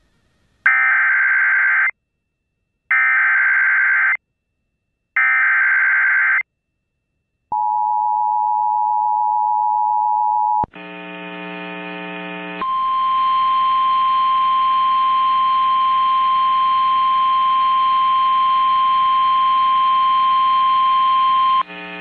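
Emergency Alert System activation for a severe thunderstorm warning: three screechy bursts of digital SAME header data, then a two-note attention tone for about three seconds. Next comes a brief buzzy tone, then a steady single alarm tone for about nine seconds, typical of the NOAA Weather Radio warning alarm.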